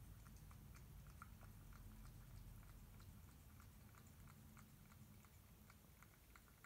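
Domestic cat chewing food from a stainless steel bowl: a faint, steady run of small clicks, a few a second.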